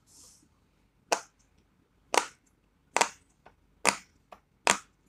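Carrot-shaped pop-it fidget toy: bubbles pressed in one at a time, giving five sharp pops about a second apart.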